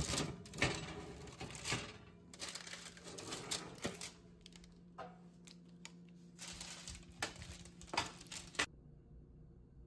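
Light, irregular clicks and crinkles of a parchment-lined metal baking tray being handled as it comes out of the oven, over a low steady hum that stops near the end.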